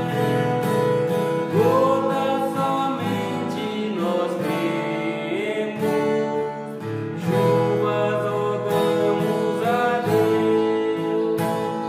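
A man singing a hymn while strumming an acoustic guitar, the voice coming in phrases over a steady strum.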